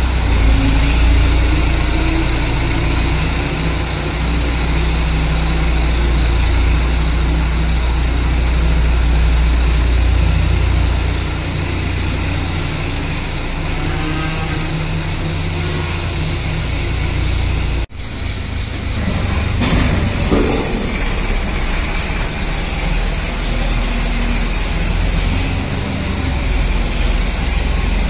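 A heavy engine running steadily with a low hum, broken by an abrupt cut about 18 seconds in, after which it runs on.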